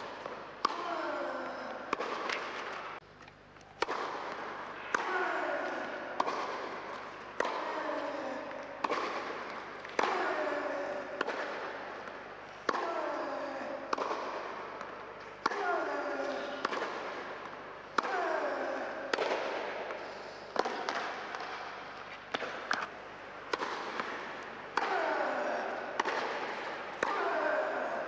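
Tennis ball struck by rackets and bouncing on an indoor hard court during rallies, about one sharp hit a second. Each hit is followed by a ringing echo that falls in pitch.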